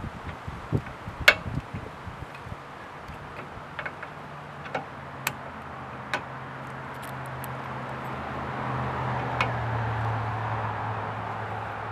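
Sharp clicks and taps of a locking hitch pin's plastic lock head being pushed onto the pin end in the hitch receiver. Under them, a motor vehicle's low engine hum swells in from about three seconds in and is loudest near the end.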